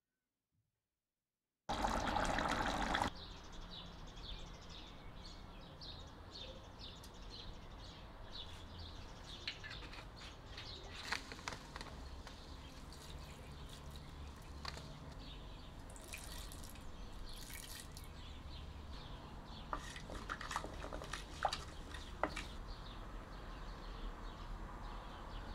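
Oil heating and sizzling in a clay cooking pot, with scattered crackles and pops through the sizzle. It opens with a loud rushing burst of about a second and a half.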